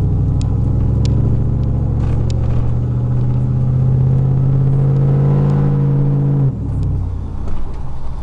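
2000 Chevrolet Silverado's 4.8-litre V8, on a partly finished 3-inch exhaust, heard inside the cab while driving, its note rising slowly under acceleration. About six and a half seconds in it falls away suddenly to a lower, rougher sound.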